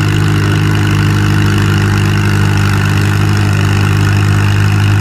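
Farmall H tractor's engine running hard at a steady pitch under load, pulling the sled down the track.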